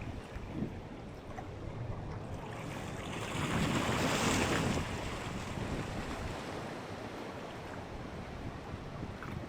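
Wind buffeting the microphone over water washing on a shallow saltwater flat, with a louder rush of wind and water about three seconds in that lasts a second and a half.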